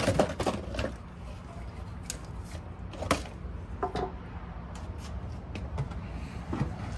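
A handful of separate light clicks and knocks, like hands handling parts, over a steady low hum.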